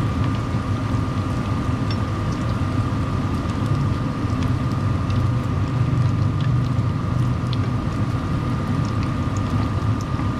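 Steady hum of a running kitchen appliance: a fan drone with a constant high whine, and faint scattered ticks over it.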